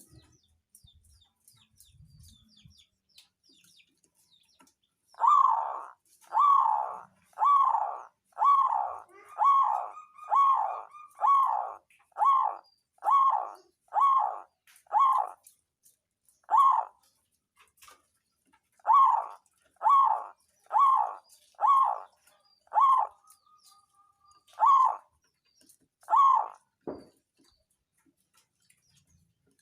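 Zebra dove (perkutut) cooing: a long series of about twenty short, repeated notes, roughly one a second, starting about five seconds in, with a couple of brief pauses.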